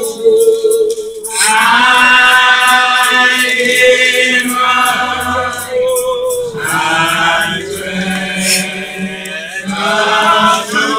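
Church congregation singing together, voices held in long notes with short breaks between phrases, over a faint steady beat.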